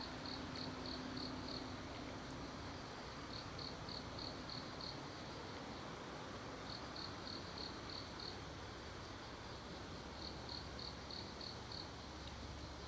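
An insect chirping: short, high trains of about six quick pulses, a train every three to four seconds, over a faint steady outdoor hiss.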